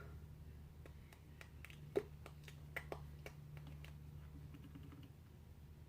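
Faint, irregular clicks and taps, about a dozen over a few seconds with one louder tap about two seconds in, over a steady low hum.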